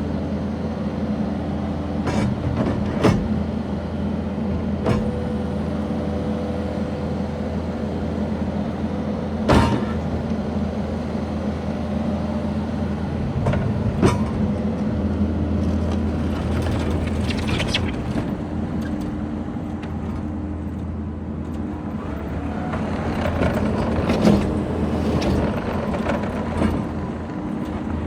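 Kubota SVL75-2 tracked skid steer's diesel engine running steadily while the machine is operated, with several sharp knocks along the way.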